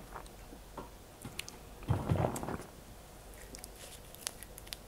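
Faint small clicks and soft mouth or handling noises in a quiet small room, with a short soft rustle about two seconds in.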